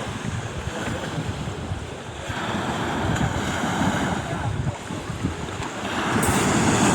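Sea waves washing onto the shore, swelling about two seconds in and again near the end, with wind buffeting the microphone.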